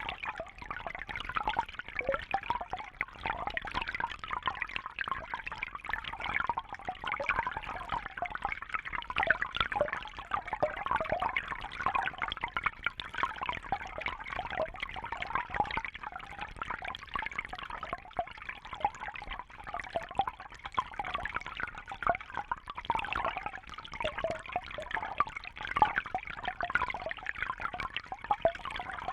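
Small brook babbling over stones: a steady burble of running water with constant fine splashes and gurgles.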